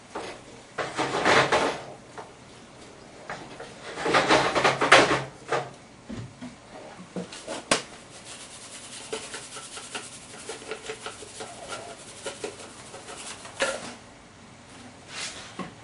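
Wooden spatula scraping and stirring in a frying pan in two loud bursts, followed by a sharp click and a run of light clicks and taps as a small jar is handled.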